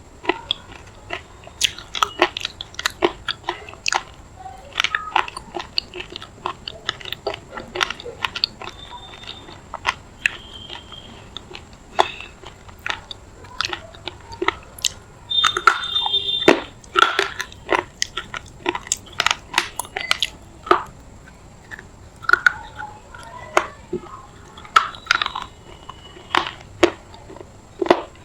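Close-miked biting and crunching of a chunk of semi-wetted red edible clay: many irregular sharp crunches and cracks, with a few brief high squeaks between them.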